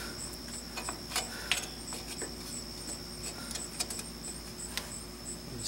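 Scattered light metallic clicks and taps of drum brake hardware being handled: the star-wheel adjuster is worked in between the brake shoes while they are spread apart by hand.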